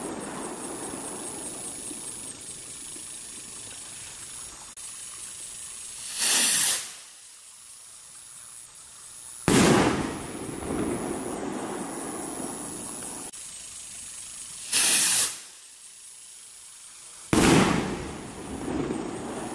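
Two firework rockets go up, each with a short hissing whoosh, and about three seconds later burst with a sudden bang that rumbles away. At the start the rumble of an earlier burst is fading.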